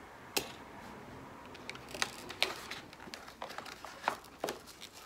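Fingers opening a small cardboard cosmetics box: scraping and rustling of cardboard and packaging, with a few sharp clicks scattered through.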